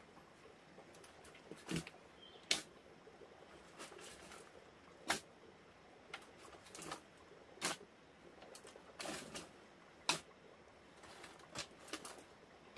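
A series of sharp knocks, the loudest about every two and a half seconds, with softer taps and light rustling between.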